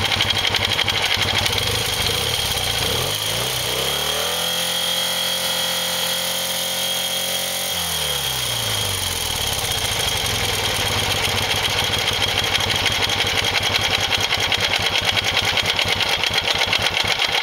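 1973 BMW R75/5's air-cooled flat-twin engine idling, revved up about three seconds in, held at higher revs for a few seconds, then dropping back to idle around eight seconds.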